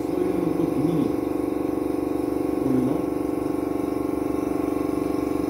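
Small handheld vacuum cleaner running with a steady hum, sucking loose gold leaf flakes off the gilded fabric.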